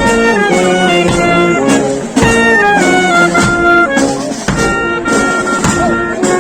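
Brass band playing a tune, several horns holding and stepping between notes, with a few drum hits.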